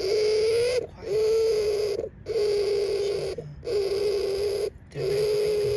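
Mother hamster making strange noises in her nest: a steady, pitched drawn-out sound lasting about a second, repeated about five times with short breaks between.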